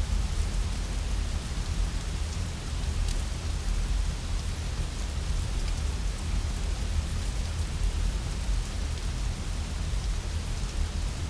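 Steady rain with a deep low rumble underneath, and a few faint sharp crackles from a wood fire.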